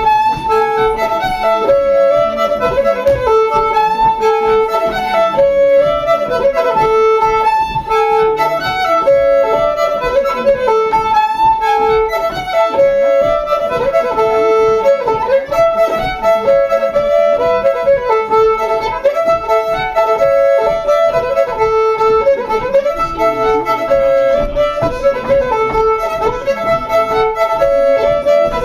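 Live fiddle-led ceilidh band playing a brisk dance tune over a steady beat, its melody repeating phrase by phrase.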